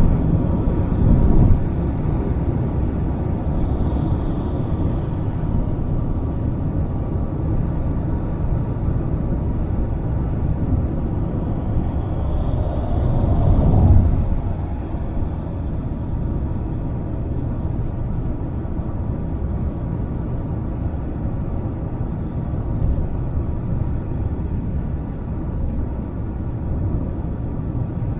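Wind from an approaching storm buffeting the microphone: a steady low rumble that swells in gusts, most strongly near the start and about halfway through.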